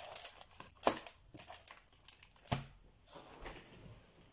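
A hardcover picture book being closed and turned over onto a wooden table: rustling of pages and cover with a few soft knocks, the sharpest about a second in and another at about two and a half seconds.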